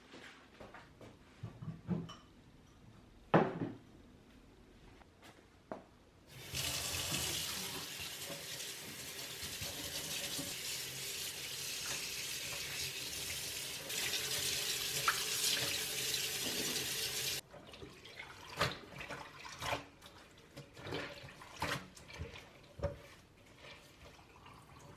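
A water tap running steadily into a sink for about eleven seconds, turned on about six seconds in and shut off abruptly. Scattered light knocks and clatter come before and after the water.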